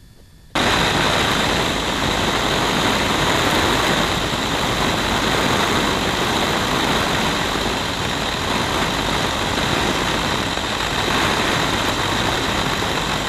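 Biplane's radial engine and propeller running steadily in flight, heard with heavy wind rush over the airframe; the sound cuts in abruptly about half a second in and then holds unchanged.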